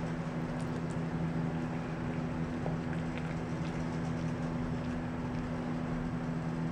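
Steady low mechanical hum with a constant drone, like a fan or appliance motor running, with a few faint clicks over it.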